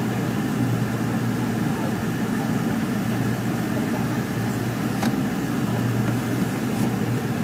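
Airliner cabin noise during descent: a steady, low drone of engines and airflow. A single short click about five seconds in.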